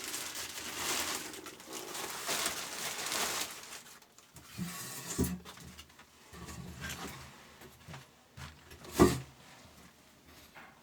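Handling noises: rustling for the first few seconds, then scattered clicks and one sharp knock near the end.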